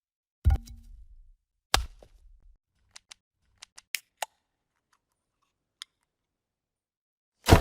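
Transition sound effects played one after another: a low thump, a sharp hit, a quick run of small clicks, a faint tick, then a loud hit at the end, with silence between them.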